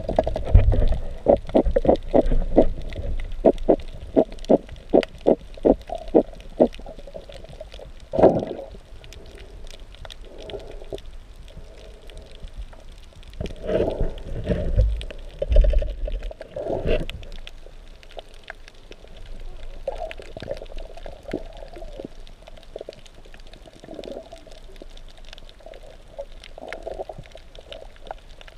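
Muffled underwater sound through a waterproof camera housing: a quick run of dull knocks, about three a second, for the first several seconds, then scattered bumps and swishes of water.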